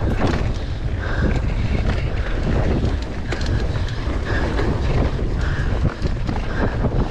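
Mountain bike descending a rough dirt trail: steady wind rush on the microphone over constant rattling and knocking from the bike, with several brief high squeals.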